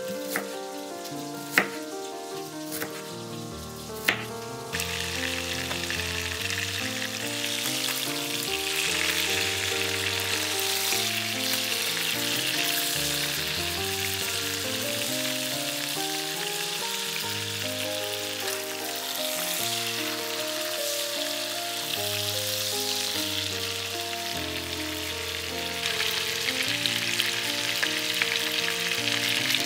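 A chef's knife chopping onion on a wooden cutting board, four sharp strikes. From about five seconds in, chicken thighs fry in butter in a frying pan with a steady sizzle, over background music.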